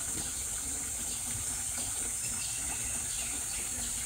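Steady running water of a clear stream-fed pool, with an even high-pitched hiss over it.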